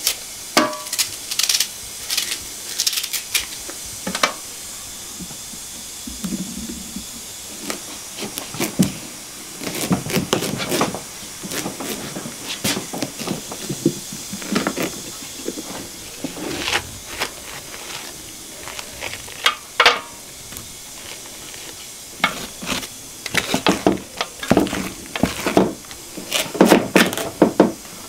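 A kitchen knife cutting into a raw pumpkin: irregular cutting and scraping strokes with knocks, over a steady faint hiss.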